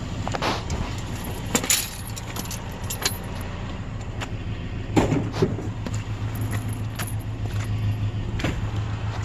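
Nissan vehicle's engine running, heard from inside the cab, with rattling and clicking over a steady low hum that gets louder about halfway through. The driver ties the noise to low oil and says it quiets down once the engine warms up.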